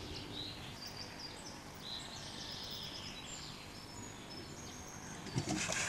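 Small birds chirping and whistling in many short high notes over a steady outdoor background hum. A brief, louder burst of noise comes about five and a half seconds in.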